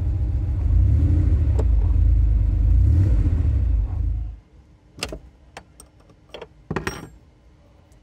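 A 1987 Porsche 911's air-cooled flat-six engine running with a steady low rumble, then switched off and cutting out suddenly about four seconds in. A few sharp clicks and knocks follow.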